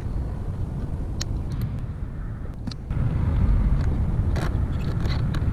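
Low, steady background rumble, louder from about three seconds in, with a handful of light clicks as vacuum hoses and electrical connectors are pushed back onto the EVAP canister.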